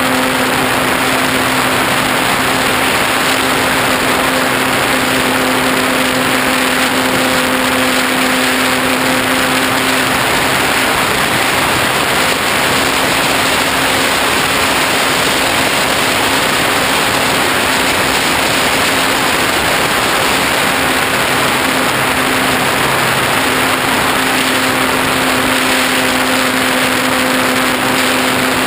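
Onboard sound of a Parkzone T-28 Trojan RC plane in flight: its electric motor and propeller hum steadily under loud rushing wind noise. The hum weakens for a couple of seconds about a third of the way in and again briefly near three-quarters.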